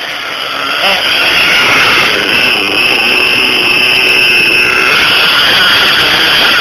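RB S7 nitro engine in an Ofna LX RC car running on its sixth tank of fuel: a steady high-pitched whine, dipping slightly in pitch about five seconds in.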